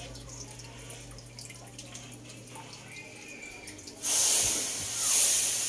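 Pancit noodles sizzling loudly on contact with a hot wok: a sudden hiss starts about four seconds in, swells again a second later and slowly fades.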